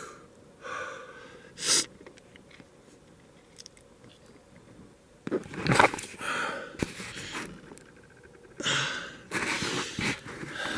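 A man breathing out hard in short, breathy blows, with a few sharp clicks and handling noises midway.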